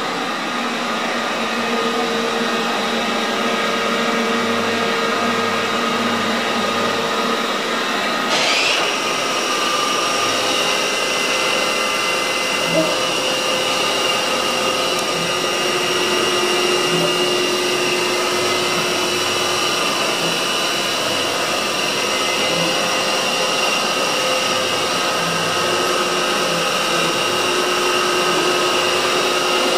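Anayak VH 1800 CNC bed milling machine running under power, a steady multi-tone motor whine. A brief rising sweep comes about eight seconds in, and the pitch of the whine shifts slightly later on.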